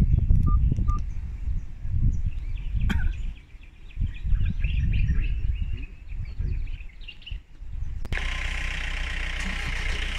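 Small birds chirping over irregular low rumbling noise. About eight seconds in, the sound changes abruptly to a steady high hiss over a low engine hum, like a vehicle idling.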